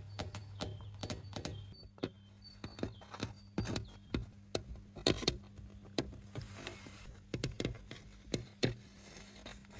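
Irregular light taps, clicks and scratchy scrapes of a hard textured object being handled and rubbed, about two or three a second, with a few faint brief squeaks in the first half over a steady low hum.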